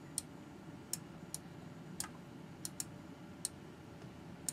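A computer mouse clicking lightly, about eight irregularly spaced clicks over faint room hum, as marks are drawn on an image on screen.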